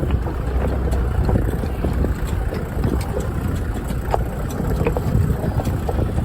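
A 4x4 driving slowly over a rough, stony off-road track: a steady low engine drone with scattered knocks and rattles.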